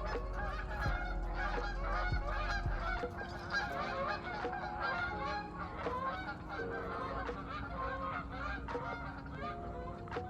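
A flock of birds calling continuously, a dense chatter of many short overlapping calls, over soft held music notes.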